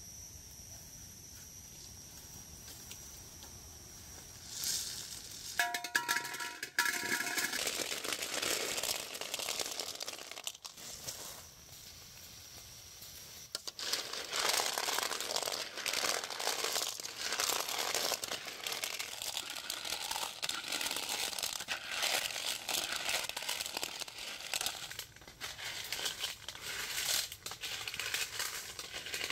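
Pebbles being stirred in a metal wok with a wooden spatula: a dense, irregular clatter and crunch of stones against the pan, starting about four seconds in.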